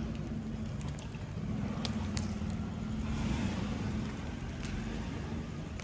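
A steady low motor-like hum with a rumble under it, and a few faint sharp crackles from burning wood embers.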